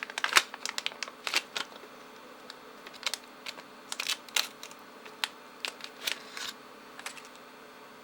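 Crinkling plastic and sharp clicks from handling, plausibly a RAM module's packaging being opened, in an irregular run that stops about six and a half seconds in.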